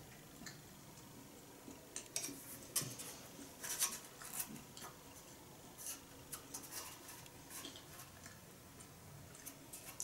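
Scattered light clicks and scrapes as a small plastic food tub and tableware are handled and eaten from, mostly in the middle of the stretch.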